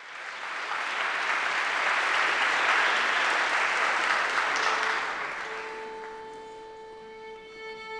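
Audience applauding, dying away after about five seconds, as a string orchestra comes in with one long held note, other notes joining near the end.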